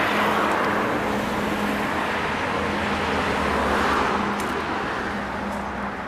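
Road traffic noise from vehicles on the road, rising to a peak about four seconds in as one passes, then fading, over a steady low engine hum.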